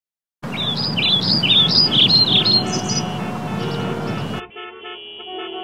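Birds chirping in quick rising-and-falling calls over a low traffic rumble, cut off suddenly about four seconds in and replaced by several car horns honking at once in long, overlapping blasts.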